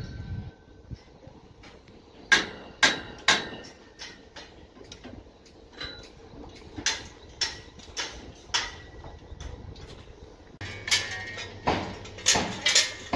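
Hammer blows ringing on metal, in short runs of three or four strikes about half a second apart; a steady low hum joins in for the last few seconds.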